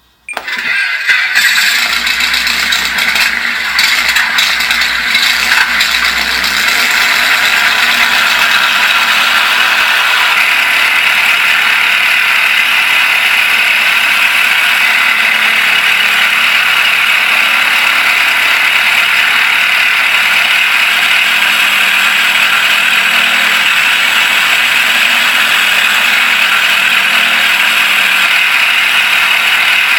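Electronic RC sound unit playing a simulated Pratt & Whitney R-2800 Double Wasp radial engine through two small exciter speakers, thin, with little bass. It comes on suddenly, runs uneven and rattly for the first several seconds, then settles into a steady idle.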